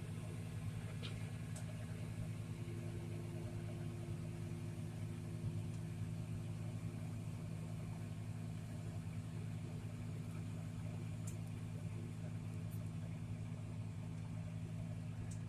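Farm tractor's diesel engine running steadily at a constant speed, a low even hum with no revving.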